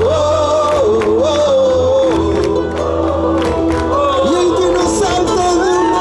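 Live Argentine folk music: a voice sings the melody over guitars and a steady drum beat, with the crowd audible underneath.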